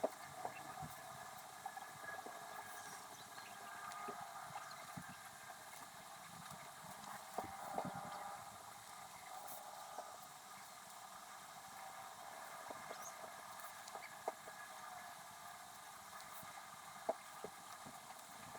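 Faint, sped-up sounds of writing a letter by hand: scattered small clicks and taps of pen and paper over a steady background hum.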